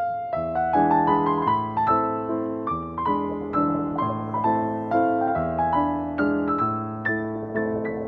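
Background piano music: a melody of single notes, about three a second, each struck and fading, over held low bass notes.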